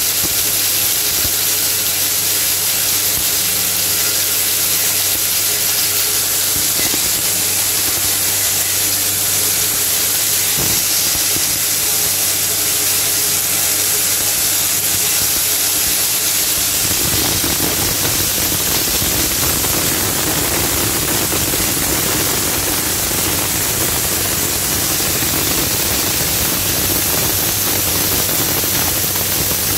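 Maize crushing machine running and grinding dry maize kernels into meal, a loud steady hiss over a low hum. About halfway through, the low hum gives way to a rougher rumble.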